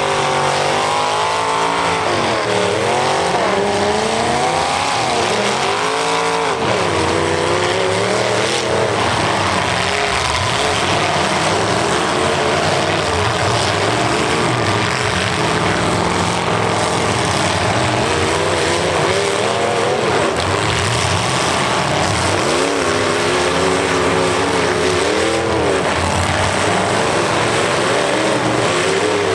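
Demolition derby cars' engines revving up and down hard under throttle, several at once, over a steady wash of engine and tyre noise.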